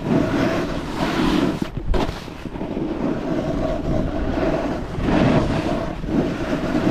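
Snowboard sliding and carving over soft, wet snow, a continuous scraping rush, with wind buffeting the microphone. A short sharp knock about two seconds in.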